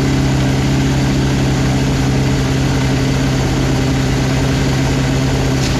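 1981 Honda CB650 engine being turned over on its electric starter with the carburetors off, a steady, even whir with a low hum.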